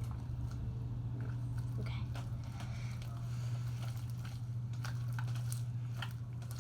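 Sticky slime freshly dipped in borax activator being kneaded and squeezed by hand, giving irregular wet clicks and crackles. A steady low hum runs underneath.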